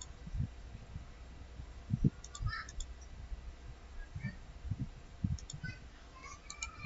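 Scattered soft clicks of a computer mouse every second or so, over a low steady hum.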